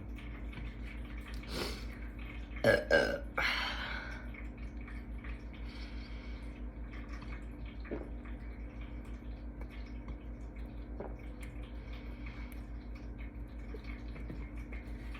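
A person burping, the loudest a few short sounds about three seconds in, after shotgunning a can of beer. A steady low hum runs underneath.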